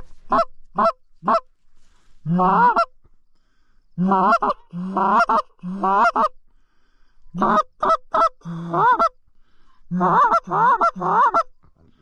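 Canada goose call blown by a hunter: a string of short clucks and two-part honks that break from a low note up to a high one, in groups of three or four with short pauses between.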